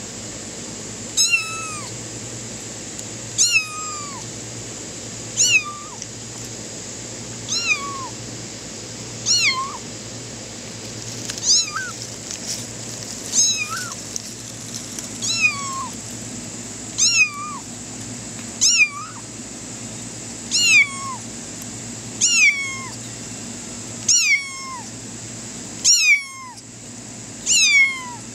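Grey tabby kitten meowing non-stop: about fifteen short meows, roughly one every two seconds, each dropping in pitch at the end.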